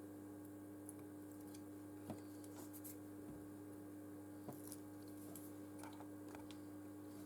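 Faint clicks and light taps of small parts and tools being handled during phone repair work, a few scattered ones, the sharpest about two seconds in, over a steady electrical hum.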